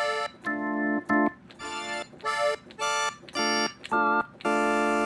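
Organ sounds on a Yamaha Montage M synthesizer, played as a quick series of short chords, about two a second.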